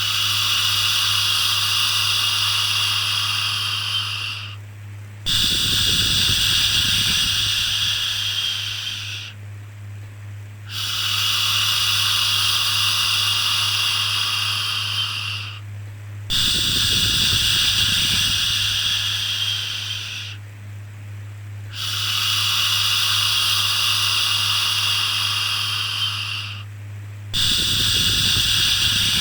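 A long 'shhh' shushing sound for calming a baby, repeated six times in a steady rhythm: each shush lasts about four to five seconds, with a short breath-like pause before the next. A steady low hum runs underneath.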